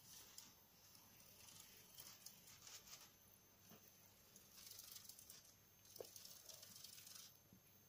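Faint scratching and rustling of a gerbil moving on the wire arch in its cage, in a few short spells, with a small click about six seconds in.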